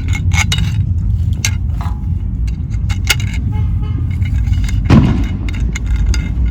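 Clicks, clinks and knocks of metal seat hardware being handled, over a steady low rumble. A louder dull thump comes about five seconds in.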